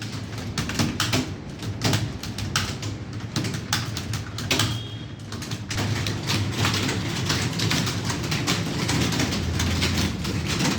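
Computer keyboards clattering as several people type fast at once: a dense, continuous stream of key clicks that thickens in the second half.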